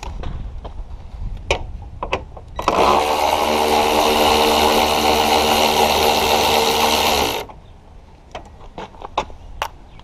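Ryobi cordless driver running steadily for about five seconds on a front-bumper fastener, starting about two and a half seconds in. Light clicks and knocks of handling come before and after it.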